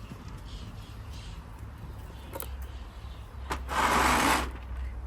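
A small power tool runs in one short burst of under a second, after a couple of sharp clicks, over a low steady hum. Faint bird chirps come through in the first second or so.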